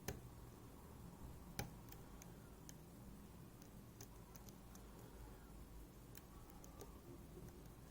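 Faint scattered clicks and ticks of lock picking tools working in a MIWA U9 lock, with two louder clicks, one right at the start and one about a second and a half in.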